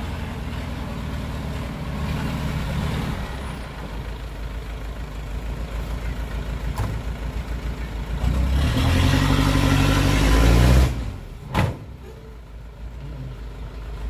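Hyundai dump truck's diesel engine running steadily while the bed tips its load of sand. About eight seconds in it revs hard for a few seconds to drive the tipping hoist, then drops back abruptly. There is a single sharp knock just after, and the engine runs more quietly to the end.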